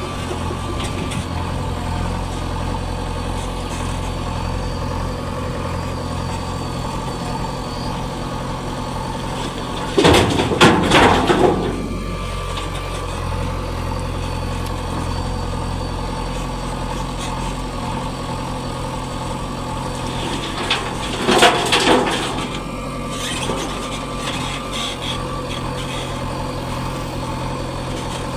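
Diesel engine of heavy loading machinery running steadily. There are two louder, noisier spells of a second or two each, about ten seconds in and again about twenty-one seconds in.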